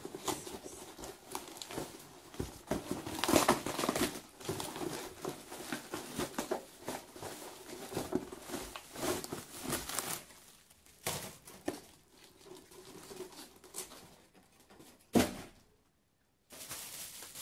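Packaging being unwrapped by hand: crinkling and rustling with scattered crackles, busiest for about the first ten seconds and sparser after. A single sharp knock sounds near the end.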